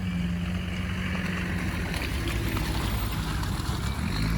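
Off-road 4x4 vehicle engine running steadily, with a rushing noise over it.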